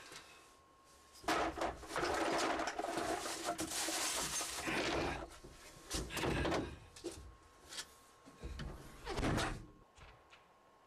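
Handling noise at a pickup's tailgate: objects rummaged, scraped and knocked, in several loud stretches of clattering and rustling with sharp knocks. It stops near the end.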